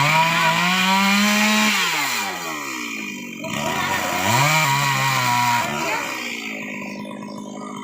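Two-stroke chainsaw engine revved up twice, holding high speed for a second or two each time and then dropping back toward idle.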